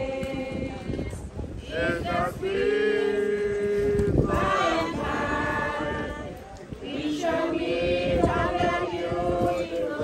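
Group of mourners singing a hymn unaccompanied, voices holding long drawn-out notes.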